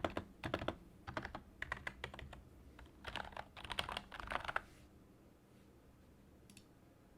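Typing on a Wolf Totem V5 membrane gaming keyboard modded with PE foam under the rubber domes and Tribosys 3204 lube on the domes and stabilizers: quick runs of keystroke clicks that stop about two-thirds of the way through, leaving only a faint tick or two.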